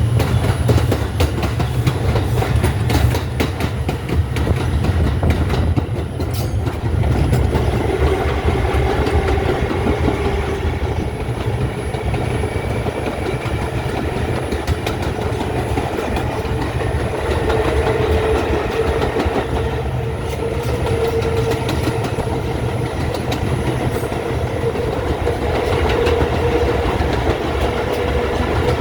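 R142 subway train running along the track: a steady low rumble with wheels clicking over rail joints, and a faint whining tone that comes in a few seconds in and grows a little stronger later.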